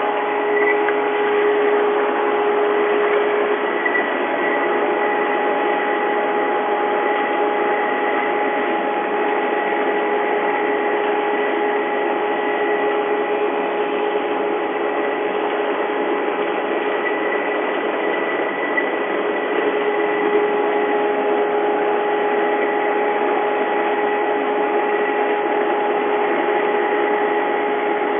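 Woodmaster planer molder running steadily: a constant machine noise with a steady whine.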